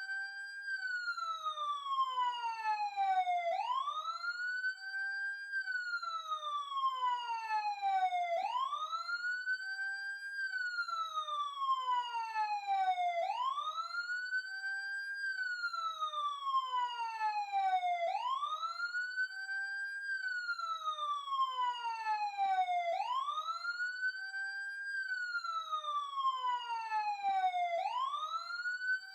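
Police siren sounding a slow wail: each cycle climbs quickly in pitch, holds for a moment at the top, then glides slowly down over about three seconds before climbing again, about every five seconds.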